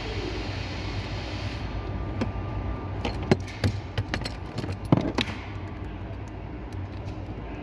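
A handful of sharp clicks and knocks, spread over a few seconds, as car interior trim parts are handled and fitted back in place, over a steady low hum.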